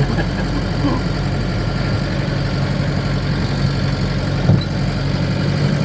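Camper van engine running steadily, heard from inside the cab, where the engine sits under the doghouse cover between the seats. A single short knock sounds about four and a half seconds in.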